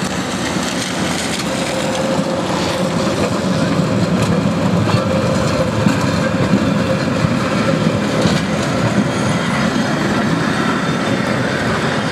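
Vintage tram ACEGAT 447 passing close by: steel wheels rolling and clacking over the rails, louder as it draws alongside about halfway through.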